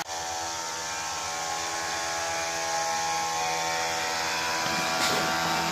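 Small DC hobby motors spinning the propellers of a cardboard toy boat: a steady buzzing whine that holds one pitch throughout.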